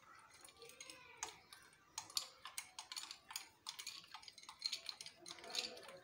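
Metal spoon stirring ice cubes in a glass of almond sherbet: light, irregular clinks of the spoon against the glass and the ice.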